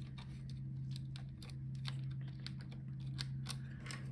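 Irregular light clicks and taps as a laptop's Wi-Fi card is lifted out and handled among the internal parts, over a steady low hum.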